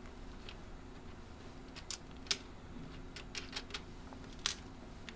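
Small metal nuts clicking and ticking as they are picked from a pile on the tabletop and spun by hand onto screws in an acrylic frame. The clicks are light and scattered, with the sharpest about four and a half seconds in.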